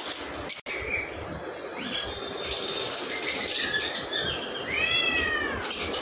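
A cat meowing three times, each call drawn out and rising then falling, the last and loudest near the end, over steady background noise.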